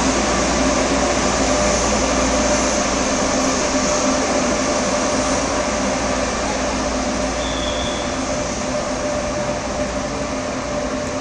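Frecciarossa ETR 500 high-speed electric train departing, a steady loud run with a constant hum, easing slightly as it pulls away. A brief high-pitched squeal comes about two-thirds of the way through.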